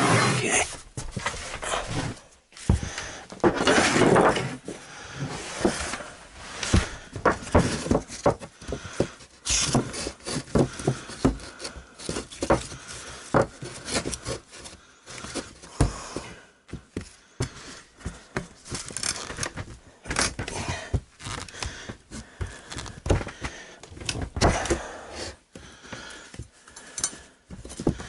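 Irregular knocks, thuds and scraping from working particle board floor panels by hand, with wood rubbing on wood as the panels are shifted and fitted.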